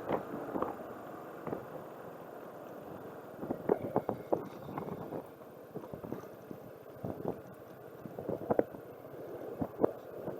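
Car driving over an uneven surface: irregular knocks and crackles, bunched about four seconds in and again near the end, over a low running hum.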